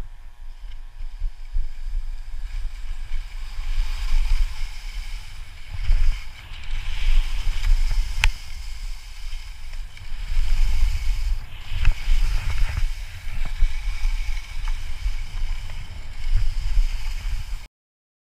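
Skis hissing and scraping over snow on a fast descent, with wind buffeting the helmet camera's microphone in uneven gusts. A single sharp click comes about eight seconds in, and the sound cuts off suddenly just before the end.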